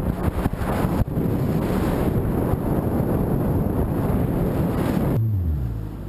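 Wind buffeting the microphone over the rush of water and the engine of a Kawasaki jet ski running at speed. About five seconds in the wind noise drops away and the engine's pitch falls.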